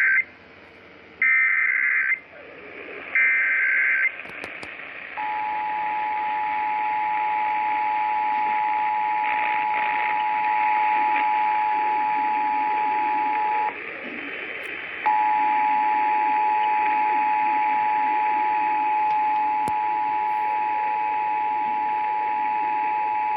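Emergency Alert System test over broadcast radio. It opens with SAME header data bursts, the end of one and then two more, loud buzzing screeches ending about four seconds in. Then the steady two-tone attention signal sounds, cuts out for about a second midway and resumes, over a background of radio hiss.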